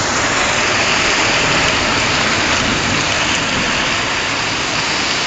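Torrential rainstorm: heavy rain driven by strong wind over running floodwater, a loud, steady rush of noise with no breaks.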